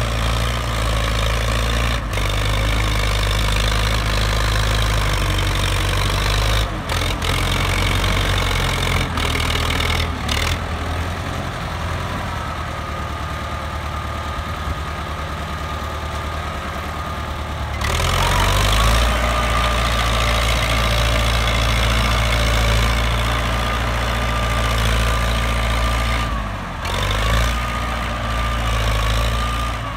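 Belarus 800 tractor's diesel engine running steadily under load while pushing soil with a front blade. The engine note rises in pitch as it revs up about two-thirds of the way in, dips and picks up again near the end.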